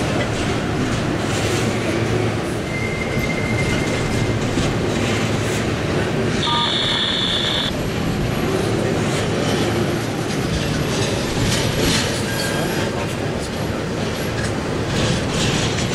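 Double-stack intermodal well cars rolling past on steel wheels: a steady rumble with scattered wheel clicks. A thin wheel squeal rings from about three seconds in, and a louder, higher squeal lasts about a second near the middle.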